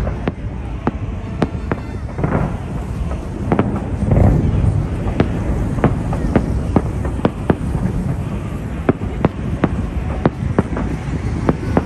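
Fireworks bursting: an irregular stream of sharp bangs, two or three a second, over a continuous low rumble, with heavier booms about two and four seconds in.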